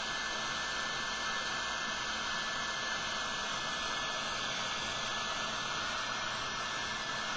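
Heat gun blowing steadily: an even rush of air with a thin, steady whine through it.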